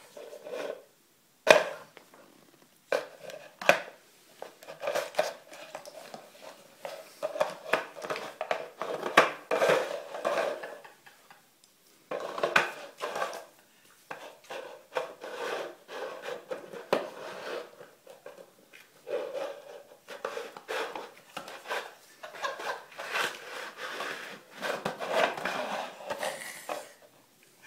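A dog pushing, mouthing and dropping a small plastic tray on a wooden floor: repeated clatters, knocks and scrapes in bursts, with short pauses.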